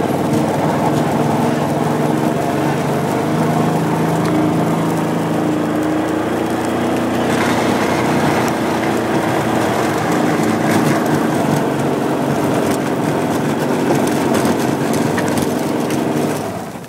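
Kawasaki Mule utility vehicle's engine running steadily under load while it pushes snow with a front plow blade, heard from the driver's seat. A broader hiss joins about halfway through, and the sound drops away sharply near the end.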